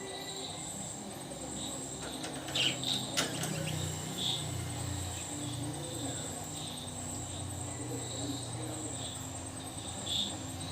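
White Fischer's lovebirds giving a few short, high chirps, with a cluster of sharp clicks about two to three seconds in, over a steady, high, pulsing trill in the background.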